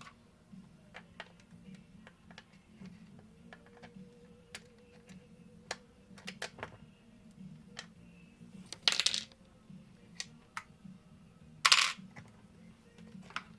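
Scattered light clicks and taps of small hard parts being handled, like screws and plastic pieces, with two louder short scraping bursts about 9 and 12 seconds in. A steady low hum runs underneath.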